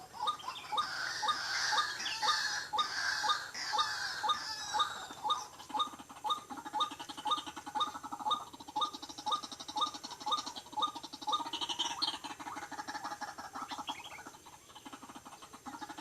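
White-breasted waterhen calls repeating in an even rhythm, about two to three a second. Higher chirps and trills from other birds are heard over them in the first few seconds, and a low pulsing sound joins for several seconds in the middle.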